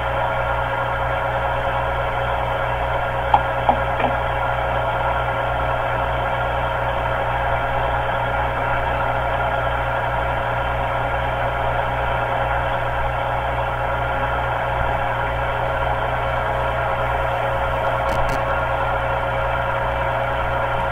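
Metal lathe running steadily while turning an aluminum part, with the chuck spinning and the tool at the work. A constant hum with a steady whining tone, and a couple of sharp ticks about three to four seconds in.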